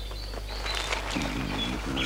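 Cartoon sound effect of a mole burrowing under the soil: a scratchy digging noise with light clicks, joined about a second in and again near the end by short low rumbles.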